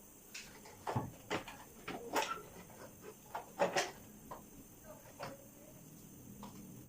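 Irregular knocks, clicks and clatter of tools and motorcycle parts being handled while the bike's front end is taken apart, a dozen or so short hits with the loudest about one, two and nearly four seconds in.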